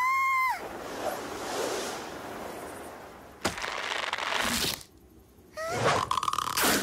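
Cartoon sound track: a short high-pitched cartoon scream to open, then a long whooshing hiss as of a fall, a sharp crack about three and a half seconds in, and a brief squeaky rising cartoon vocal near the end.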